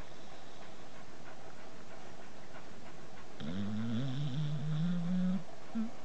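Sleeping dog snoring, with a drawn-out low moan about halfway through that rises slowly in pitch and lasts about two seconds.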